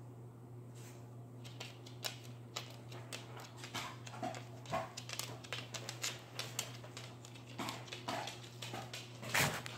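A dog's claws clicking irregularly on a hardwood floor as it walks around, with a couple of short whines and a louder clatter near the end, over a steady low hum.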